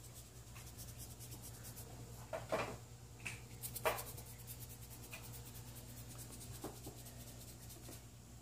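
Kittens' paws and claws scratching and rubbing on a cardboard box, with two louder scrapes about two and a half and four seconds in, over a steady low hum.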